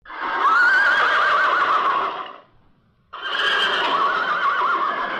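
A horse whinnying twice, each a long quavering call of two to three seconds, the second beginning about three seconds in.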